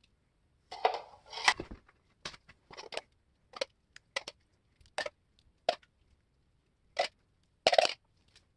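A metal spoon scooping wet garlic, shallot and rosemary paste from a plastic cup and spreading it over a raw chuck roast: a string of short, irregular scrapes and dabs, the longest cluster about a second in.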